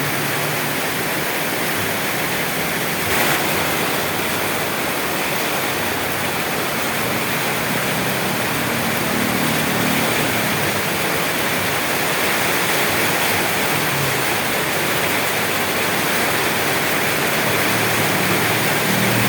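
Steady rain, an even hiss with no let-up. A faint low hum swells and fades about halfway through.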